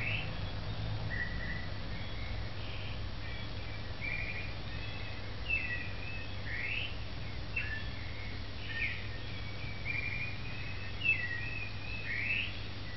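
Wild birds chirping and calling again and again in short, quick rising and falling phrases, over a steady low hum.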